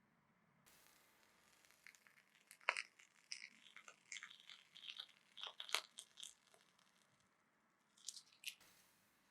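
Light crinkling and tearing: a quick, irregular run of small crackles for about four seconds, then two more a couple of seconds later.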